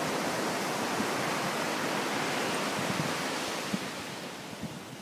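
Ocean surf breaking on a sandy beach: a steady rushing wash that eases off near the end.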